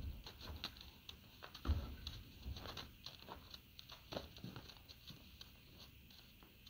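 A horse backing out of a stock trailer: a hollow hoof thump on the trailer floor about two seconds in, then light scattered hoof steps on snowy ground.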